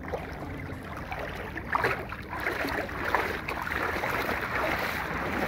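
River water splashing and sloshing, with a few irregular louder splashes in the middle.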